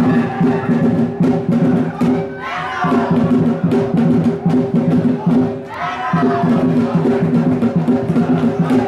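Music with a steady drum beat, a louder phrase coming back twice about three and a half seconds apart.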